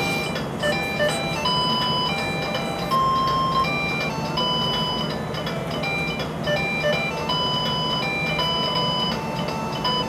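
LeapFrog Crazy Legs Learning Bug toy playing an electronic melody through its small speaker: a simple tune of clear beeping notes, about two a second.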